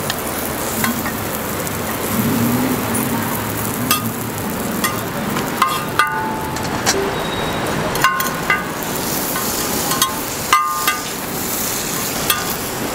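Roti frying in oil on a flat round griddle, sizzling steadily, with sharp ringing clinks as a metal spatula strikes and scrapes the griddle a few times in the second half.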